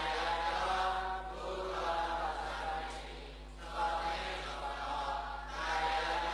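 Buddhist chanting in a steady recitation tone, in two phrases with a short pause about three seconds in.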